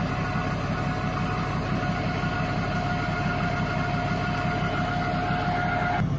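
Pickup truck engine idling steadily, with a steady whine over the low running.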